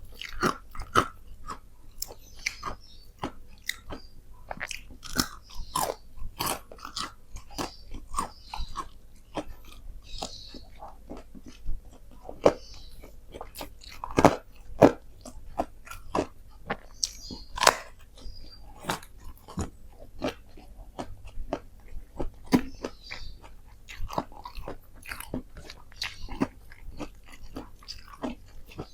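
A person chewing and biting into crispy chicken close to the microphone, with irregular sharp crunches throughout.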